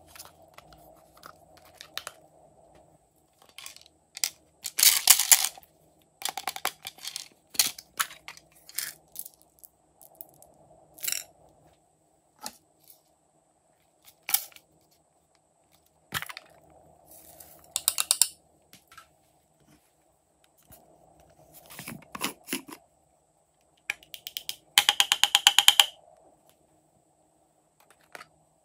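Small hard plastic toy cases being handled and opened: scattered clicks and snaps of plastic, with several short bursts of rapid crackling clicks, the loudest about five seconds in and near the end.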